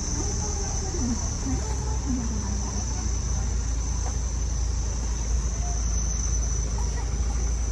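Low, steady diesel rumble of fire engines creeping along in a column, with a steady high-pitched whine over it.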